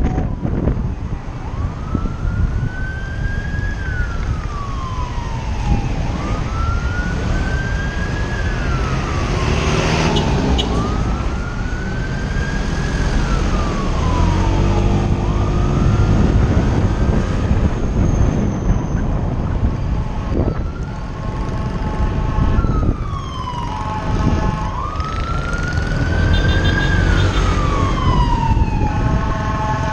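A siren wailing, a slow rise and fall that repeats about every four to five seconds, over heavy wind noise and road rumble. A rapidly pulsing multi-tone electronic sound joins it in the last several seconds.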